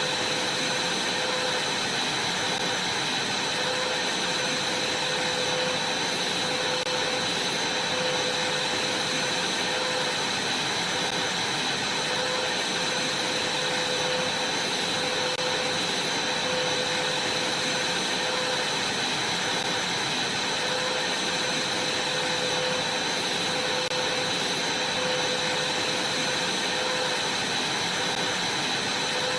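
Vacuum cleaner running steadily over a trampoline mat, with a constant high-pitched whine over the motor noise.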